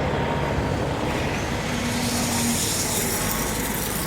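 A heavy diesel engine running steadily, with an even rumble and hiss.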